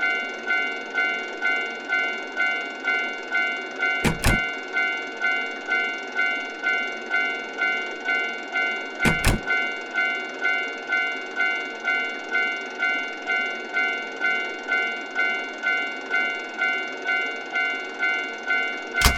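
Japanese level-crossing alarm ringing its electronic "kan-kan" bell in an even pulse about twice a second. Three sharp knocks cut in, about four seconds in, about nine seconds in and near the end.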